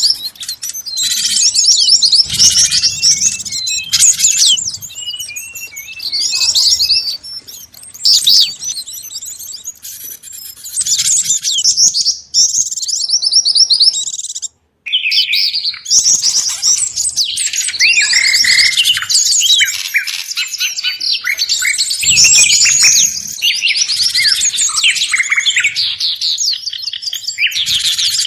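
Dense, noisy chorus of many small songbirds chirping and twittering over one another: a mixed bird-luring (pikat) recording of flycatchers, tits, white-eyes and similar forest birds. The sound breaks off for an instant about halfway through, at a splice in the track, then carries on.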